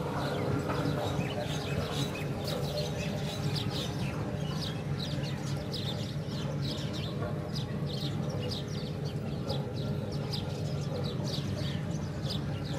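Small birds chirping over and over, many short high falling chirps, over a steady low hum.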